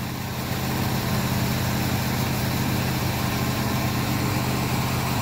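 Engine idling steadily, an even low hum with no change in speed.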